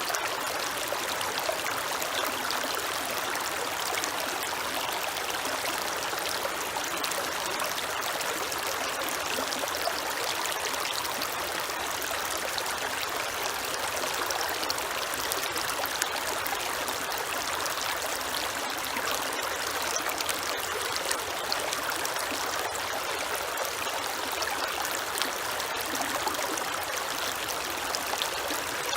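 Creek water flowing and trickling steadily, a constant rushing with fine splashing ticks.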